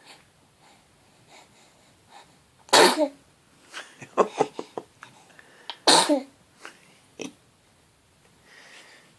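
A baby sneezing twice, about three seconds apart, with a few softer short sounds in between.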